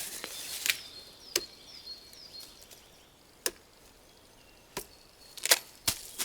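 A handful of sharp knocks and snaps, irregularly spaced over several seconds. A small bird chirps faintly in between.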